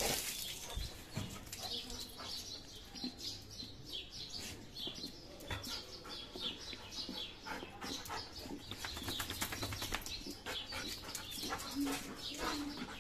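Splashing and handling sounds while a wet dog is bathed on a concrete floor: water poured from a plastic mug spatters over the dog and the ground, with many short taps and clicks.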